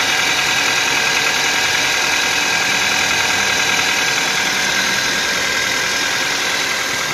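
2004 Toyota Corolla CE's 1.8-litre four-cylinder idling, with a steady high whine from the manual transmission. The whine is a noise the owner gets on cold starts in neutral with the clutch pedal released, and suspects is a worn clutch throwout bearing.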